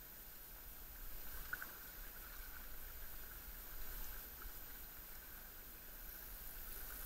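Faint water sounds of a kayak being paddled on calm sea: the paddle blade dipping and water lapping at the hull, with a few small splashes.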